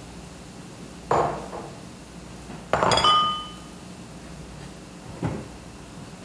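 Kitchenware clattering: three knocks of dishes or cookware being handled. The loudest, about three seconds in, rings briefly with a clear tone.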